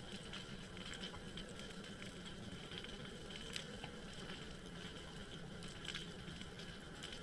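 Faint underwater ambience picked up by the camera: a steady hiss scattered with sharp little clicks and crackles.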